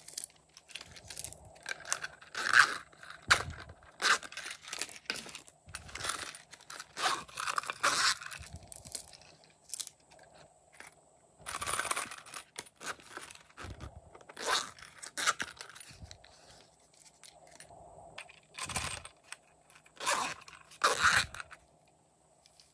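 Zippers on small hard-shell zip cases being pulled open and shut, with scraping and handling noises of the cases in irregular bursts and pauses.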